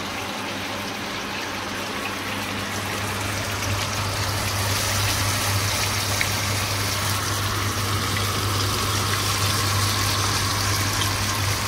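Small masala-coated fish deep-frying in hot oil in a frying pan: a steady sizzle that grows louder about four seconds in, over a low steady hum.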